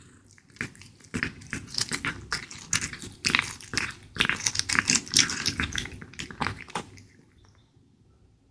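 British shorthair cat biting and chewing raw beef cubes: a quick, irregular run of chews for about six seconds, dying away a second or so before the end.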